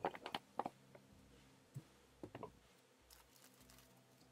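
A few faint, short plastic clicks and taps from a plastic bottle and container being handled while liquid plaster is poured. They cluster in the first second and come twice more around the middle, then near silence.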